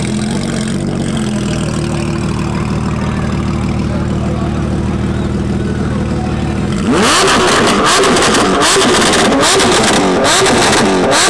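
Porsche 992 GT3 RS's naturally aspirated flat-six, fitted with a straight-piped exhaust, idling steadily. About seven seconds in it breaks into loud, repeated quick revs, rising and falling in pitch about twice a second.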